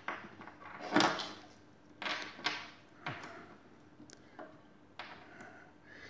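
Handling noise: a few separate knocks and clunks, spaced about a second apart, as small circuit boards and a 9-volt battery are moved about on a tabletop.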